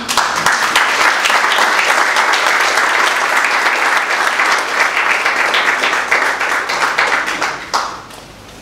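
Audience applauding steadily with hand claps, dying away near the end.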